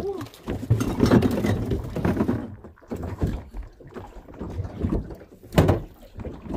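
Small inflatable boat on choppy water: water slapping and knocking against the hull, with one sharp thump about five and a half seconds in.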